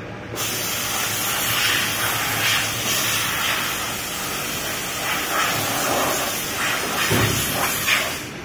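Loud steady hiss of rushing air at a vacuum membrane press as the film is drawn down over the table, starting abruptly just after the start and cutting off sharply near the end.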